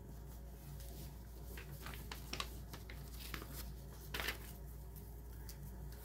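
Paper instruction sheet being handled and folded: faint, scattered crinkles and rustles, with one louder rustle about four seconds in.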